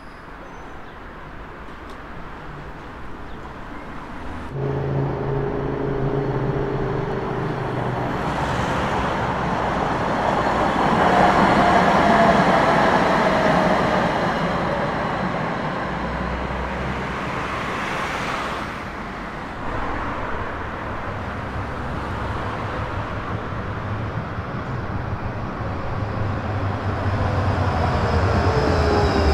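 City street traffic with trams passing: vehicles rolling by, with a swell of rolling noise about twelve seconds in. Near the end, a falling whine as a tram slows.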